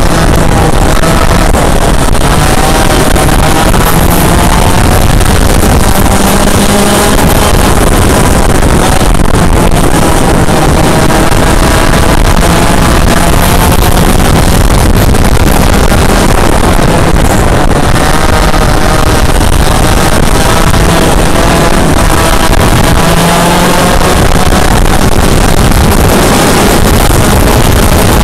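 Yamaha KT100 single-cylinder two-stroke kart engine at racing speed, loud, its pitch rising and falling again and again as it revs out on the straights and drops for the corners. Heavy wind buffets the microphone.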